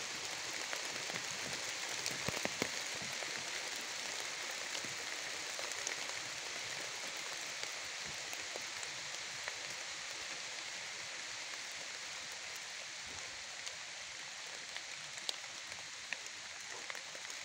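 Steady rain pattering, an even hiss of drops, with a few small crackles from burning birch bark, a short cluster about two seconds in.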